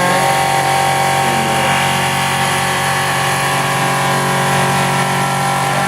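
Milling machine spindle turning a 3/4-inch four-flute end mill at about 5,000 rpm while it face-cuts a metal block under coolant. The sound is a steady whine of several held tones over a hiss.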